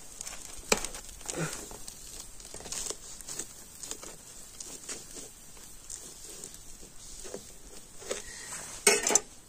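Toasted sandwich being cut in half with a knife on a plate: scattered crunches and clicks, with a louder clatter of knife against plate near the end.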